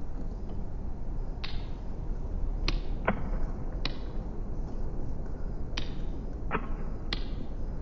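A series of about seven short, sharp swishing strokes, irregularly spaced, over a steady low rumble and hiss.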